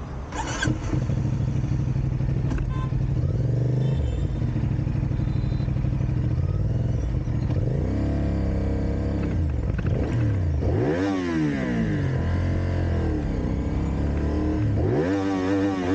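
Motorcycle engine running under way, its revs rising and falling several times as it accelerates, mostly in the second half.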